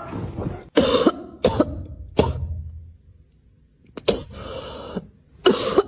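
About five short coughing or hacking bursts, spaced unevenly, with a quiet gap in the middle.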